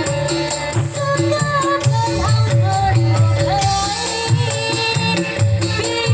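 Reog Ponorogo accompaniment music: a wavering, gliding reed-pipe melody over a steady, repeating drum-and-gong beat, with shaken rattles.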